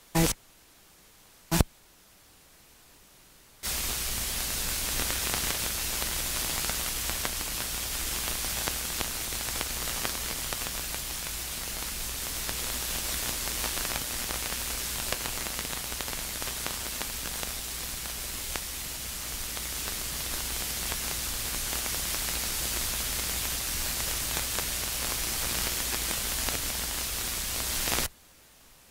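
Loud, steady hiss of static, like white noise, that switches on abruptly about three and a half seconds in and cuts off just as suddenly near the end. Two brief clicks come before it.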